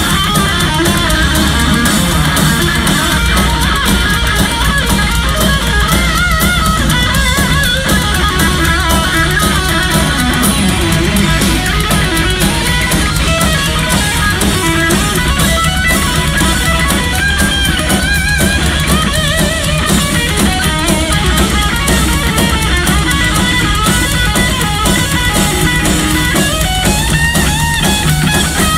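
Live hard-rock band playing loud: electric guitar playing wavering lead lines over bass guitar and drum kit, with no singing.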